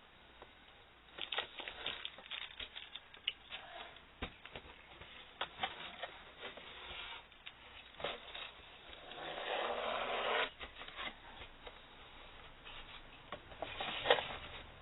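Hands handling a plastic emergency lamp: scattered clicks and taps, a rubbing scrape lasting about a second and a half past the middle, and a shorter rub near the end.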